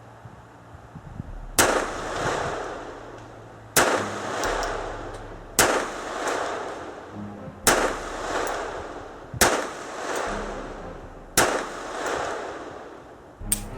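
Colt 1908 Vest Pocket pistol in .25 ACP fired six times in slow succession, about two seconds apart, each shot trailed by about a second of echo. A shorter sharp crack comes near the end.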